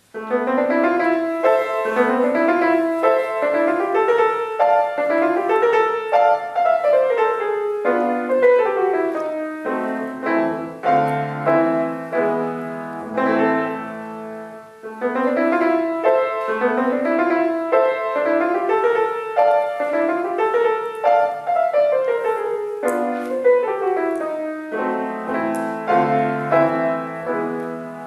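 Grand piano played solo: a fast piece built of quick rising runs about one a second, starting suddenly, moving to a lower, heavier passage in the middle, and bringing back the opening runs about fifteen seconds in.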